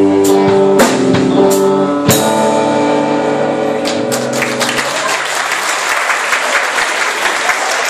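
Live rock band with guitar and drum kit playing the final bars of a song, ending on a last hit about two seconds in and a held chord that rings out and fades, then an audience applauding from about five seconds in.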